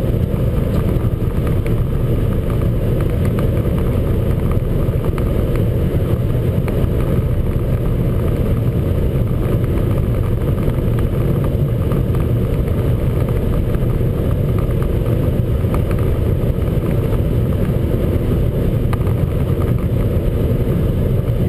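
Opel Vectra A 1.8i's four-cylinder engine running flat out at a steady speed of just under 5,000 rpm, at about 200 km/h top speed, mixed with road and wind noise, heard from inside the cabin. The sound is steady and does not rise or fall.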